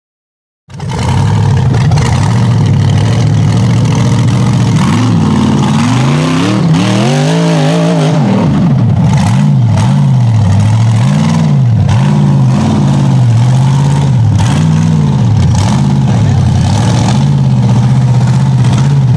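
LS V8 engine of a rock-crawling buggy revving up and down under load on a steep climb. It cuts in under a second in, climbs to a high rev about six seconds in, then rises and falls about once a second with repeated throttle blips.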